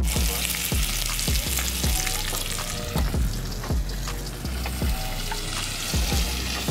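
Bacon sizzling as it fries in a pot on a portable butane camp stove, over background music with a steady beat.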